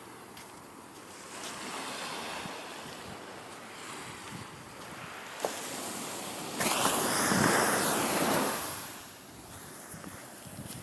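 Ocean waves washing up on the shore, with one louder surge of surf about two-thirds of the way through that fades over a couple of seconds.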